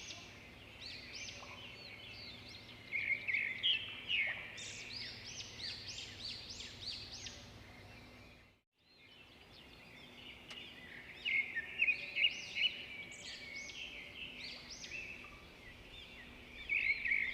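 Many small birds chirping and calling over one another in a dense, busy chorus of short, quick notes, with a brief drop-out about halfway through.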